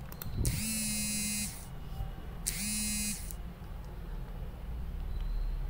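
Two steady low electric buzzes, the first a little over a second long and the second slightly shorter, about a second apart.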